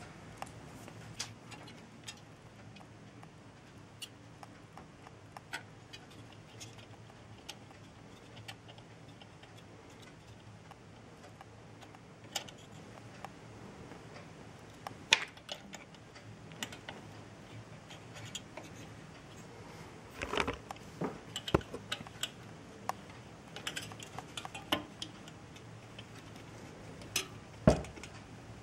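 Small hard parts clicking and clinking as they are handled, with a few sharper knocks about halfway through, a cluster of them two-thirds of the way in, and one near the end, over a faint steady low hum.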